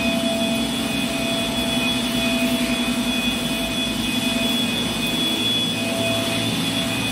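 A steady machine drone with a constant whine held on several fixed pitches, unchanging throughout.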